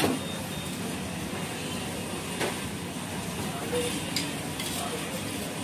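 Steady hiss of a lachha paratha frying in oil on a large iron tawa at a street stall, with a few sharp clinks of utensils and faint voices in the background.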